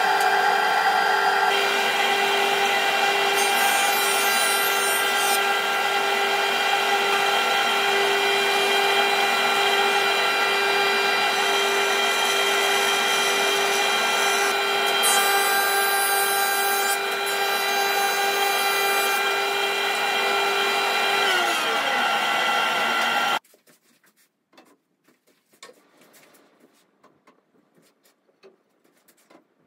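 A jointer-planer runs steadily with its dust extraction, cutting oak boards fed across the cutterhead, with brief hissy stretches as the wood is cut. About 21 seconds in, the motor winds down, dropping in pitch, then the sound cuts off abruptly, leaving only faint knocks.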